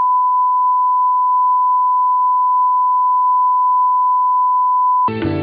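A steady, unbroken reference beep at one fixed pitch (a 1 kHz test tone) that cuts off suddenly about five seconds in as instrumental music starts.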